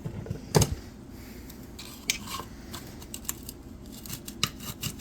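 Hand tools and metal chainsaw parts being handled on a workbench during disassembly: a loud knock about half a second in, then a string of small metallic clicks and taps.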